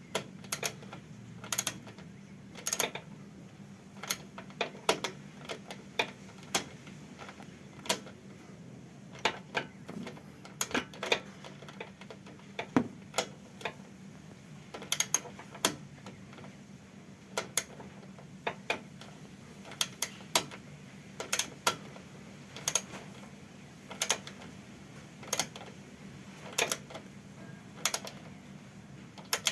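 Irregular sharp clicks and clinks of hand tools and fasteners, often in pairs or small clusters, over a faint steady low hum.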